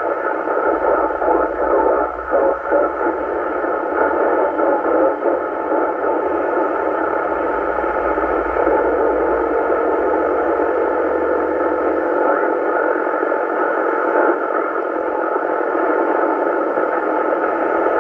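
FM radio receiver audio: a steady band-limited hiss of static coming through while the 27 MHz (11-metre) German duplex repeater's output is being received on 27.405 MHz with no one talking. A faint steady tone sits under the hiss for a few seconds midway.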